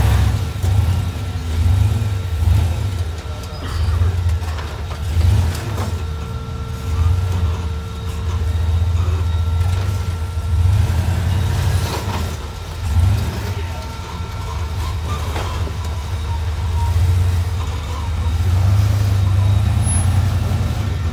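Rock crawler buggy's engine under load as it crawls up a steep rock ledge, rising and falling with repeated throttle bursts every second or two.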